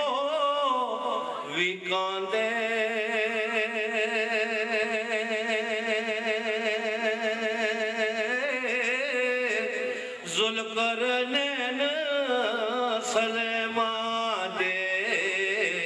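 A man chanting devotional verse solo and unaccompanied, in long held notes with a wavering vibrato, broken by a short pause about ten seconds in.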